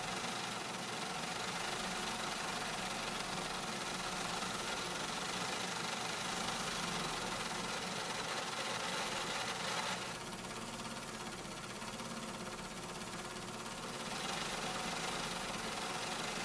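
Steady mechanical hum of workshop machinery running, with a light repetitive knocking; the hiss drops back for a few seconds about two-thirds of the way through, then returns.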